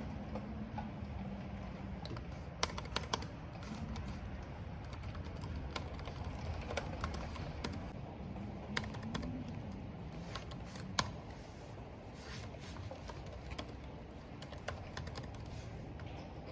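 Typing on a computer keyboard: irregular keystrokes, some louder than others, over a steady rush of rain and wind.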